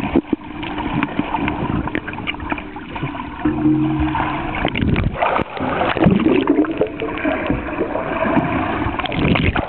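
Muffled underwater rushing, gurgling and splashing as a kayak capsizes and the paddler works through an Eskimo roll, heard from below the surface. A brief low hum about three and a half seconds in.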